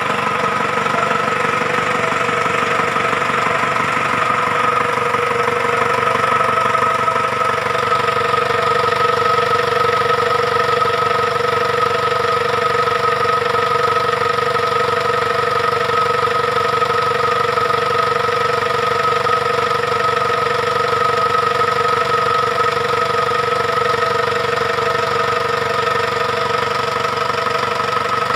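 Freshly overhauled Isuzu 4HF1 four-cylinder diesel engine idling: a steady, even diesel clatter with a constant whine over it, the idle settling slightly higher about five seconds in.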